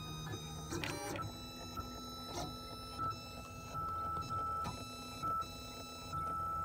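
Stepper motors of a homemade food 3D printer whining as it prints: steady tones that switch on and off and shift pitch with each move, with a quick sweep about a second in.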